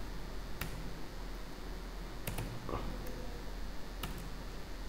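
A few scattered computer keyboard keystrokes, single sharp clicks spaced a second or so apart, over a faint steady low hum.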